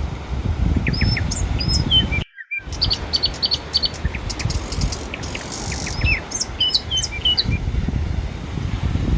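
Small birds chirping in quick, short calls and trills over a steady low rumble of surf and wind on the microphone. The sound cuts out completely for a moment about two seconds in.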